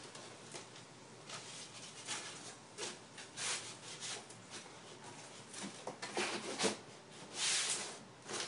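Hands rustling and scraping packing material and corrugated cardboard while packing a long cardboard box: a string of short rustles and taps, with a longer, louder scrape near the end as the box flap is closed and the box moved.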